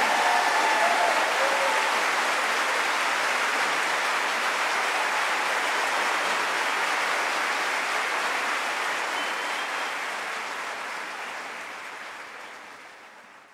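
Audience applauding at the end of a choir performance, a steady sustained clapping that fades out over the last few seconds.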